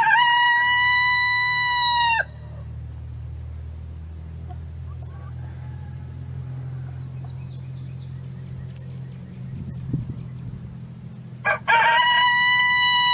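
Rooster crowing twice, about ten seconds apart; each crow is a few short notes ending in one long held note. The second crow starts near the end.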